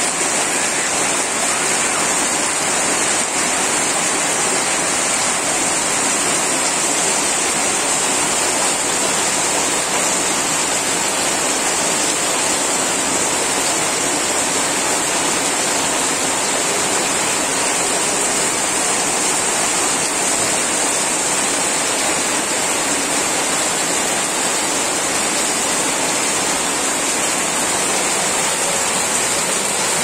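Torrential rain pouring down in a steady, unbroken downpour.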